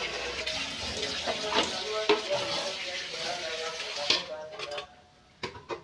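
Tap water running and splashing into an aluminium pot as it is rinsed, with a few metal knocks of the pot. The water stops about four seconds in, followed by a brief lull and a couple of clanks of metal cookware.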